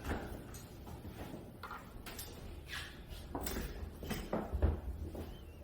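A series of short clicks and rustles from close handling, with a low thump about four and a half seconds in.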